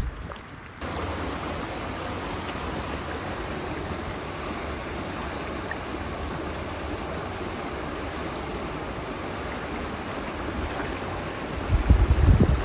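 Shallow rocky brook flowing steadily, an even rushing of water. Near the end, low buffeting thumps hit the microphone.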